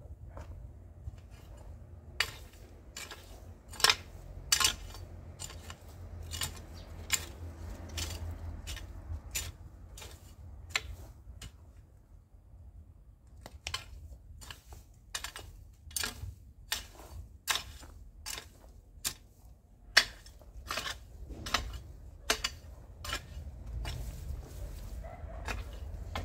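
Garden hoe chopping into dry soil: a string of sharp strikes, about one or two a second, with a pause of roughly two seconds midway.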